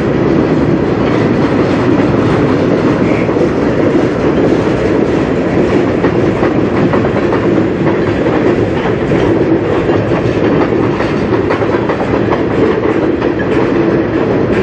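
Freight train's tank cars rolling past close by: a steady rumble of steel wheels on rail, with regular clicking as the wheels cross rail joints.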